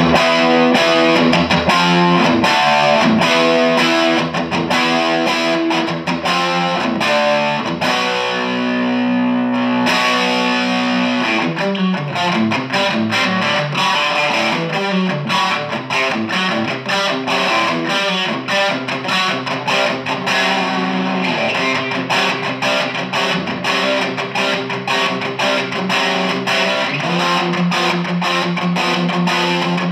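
Electric guitar played through a Dynamo GTS Flight Rig tube preamp on its clean channel with the gain boost on, giving a mildly distorted crunch tone. Chord riffs, with one chord held for a couple of seconds about nine seconds in, then quicker picked notes.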